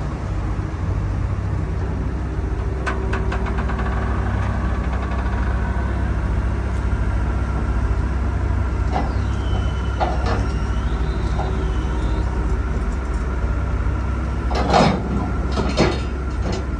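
Doosan crawler excavator's diesel engine running steadily as the machine swings its boom round and lowers the bucket onto the trailer deck, with a high wavering whine about ten seconds in. Two sharp knocks come near the end.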